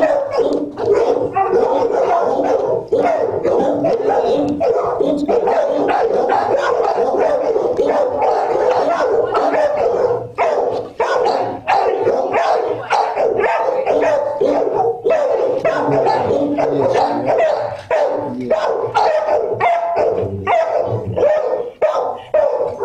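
Dogs in a shelter kennel block barking continuously, many barks overlapping into a steady din.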